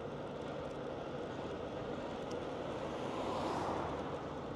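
Steady road noise of a vehicle driving along a street, a rumble and hiss that swells briefly a little over three seconds in and then fades back.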